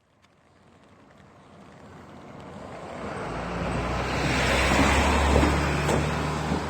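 A road vehicle approaching and passing close by: engine hum and tyre hiss build steadily for several seconds, peak about five seconds in, then begin to ease.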